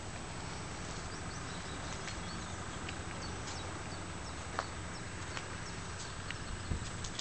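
Small birds chirping in short high notes over a steady low rumble, with a few faint clicks near the middle and the end.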